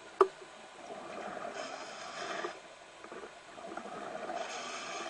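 Scuba diver's regulator breathing heard underwater: two long swells of rushing exhaled bubbles that rise and fade, with one sharp click about a quarter of a second in.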